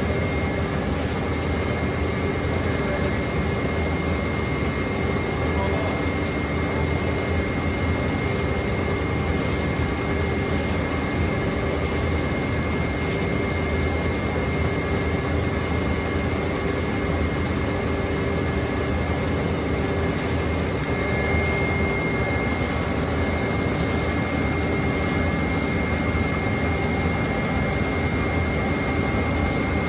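Xerox iGen 150 digital production press running: a steady whirr of fans and motors with a thin, steady high whine on top.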